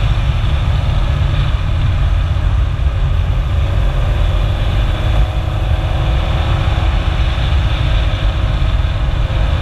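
Mk1 Ford Focus 1.8 driving along at a steady speed: engine, tyre and road noise heard as a steady low rumble, picked up by a camera mounted low on the outside of the car.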